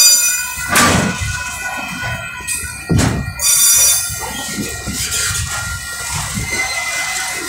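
Freight train's container wagons rolling past, wheels clacking over rail joints with a couple of sharp knocks, and wheel flanges squealing in high tones near the start and again about three seconds in.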